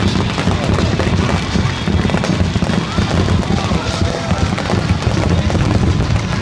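Fireworks going off in a dense finale barrage: continuous rapid crackling and bangs with no break.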